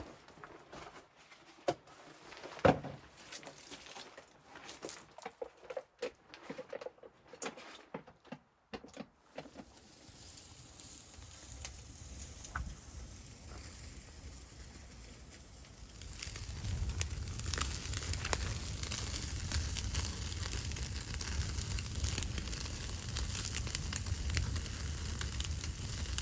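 Irregular knocks and crinkling of things being handled, then a fire burning with a steady rushing sound and scattered crackles. The fire grows louder and fuller about two-thirds of the way through.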